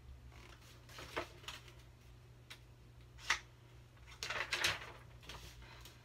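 Pages of a paperback picture book being turned and handled: a string of short paper rustles and flaps, the loudest about three seconds in and again between four and five seconds.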